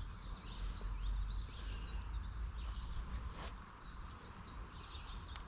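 Songbirds chirping and singing in repeated short high notes, over a low steady rumble. A single click sounds about three and a half seconds in.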